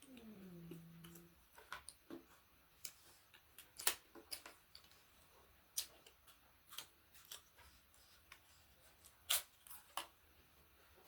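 Close-up eating sounds: scattered sharp clicks and smacks of chewing and handling food, spaced a second or more apart, after a short falling hum at the start.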